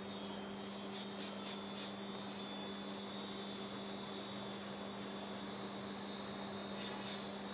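Magical shimmer sound effect for a genie's appearance: a dense, sustained wash of high chime and wind-chime tones over a low steady hum.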